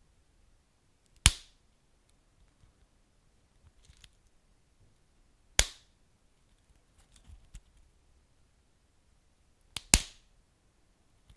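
Wood fire crackling: three loud, sharp pops about four seconds apart, the last one a quick double, with faint small crackles in between.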